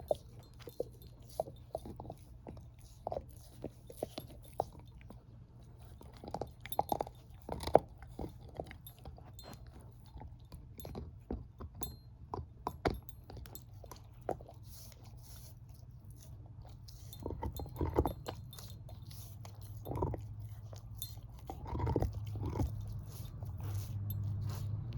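Shepherd-mix dog chewing a bone: irregular loud crunches and cracks as it bites down, a few much louder snaps around the middle and later on.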